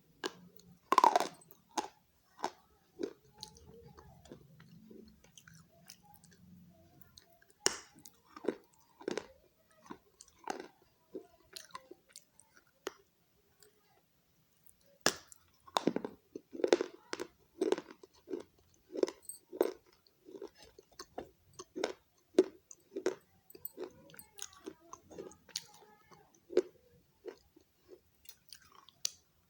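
A person biting into and chewing hard baked clay close to the microphone. There is a loud crunching bite about a second in, then runs of crisp chews, about one or two a second, with a short pause in the middle.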